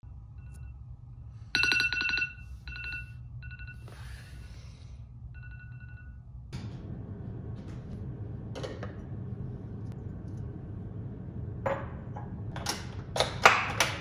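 Tablet alarm chiming a short repeated pitched tone several times over the first six seconds, loudest about two seconds in. Later, glass jars clink and knock against a kitchen counter, with a cluster of sharp clinks near the end over a low steady hum.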